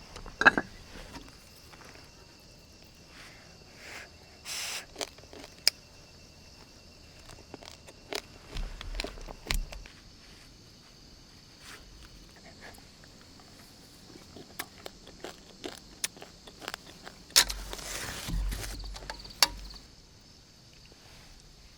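Scattered knocks, clicks and rustling, loudest in a few clusters, over a steady high chirring of insects.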